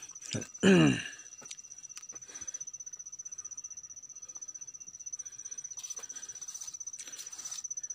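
Insects trilling: a steady, high-pitched, rapidly pulsing chirr, cricket-like, that runs under everything. A short spoken word breaks in just before the first second, and leaves rustle softly near the end.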